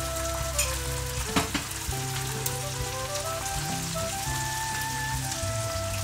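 Frying sizzle from a pan of golden-browned onions in hot mustard oil, steady throughout, with a sharp knock about a second and a half in. A soft background music melody runs underneath.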